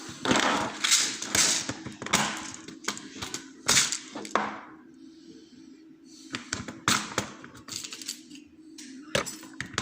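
Small metal lock parts being handled as a picked challenge lock is taken apart: a busy run of clicks and scraping for the first few seconds, then scattered single clicks and taps.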